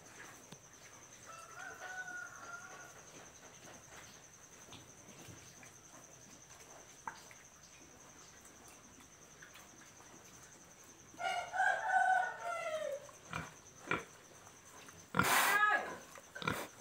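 Pig feeding at a concrete trough, mostly quiet with faint small clicks. A rooster crows about eleven seconds in, and a loud short animal call comes near the end.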